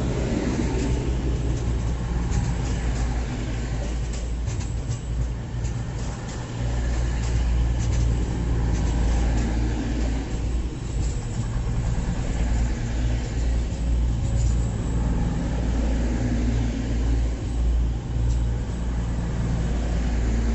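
Diesel train's engine running with a steady low drone, a few clicks and rattles about four to six seconds in, growing louder after about seven seconds.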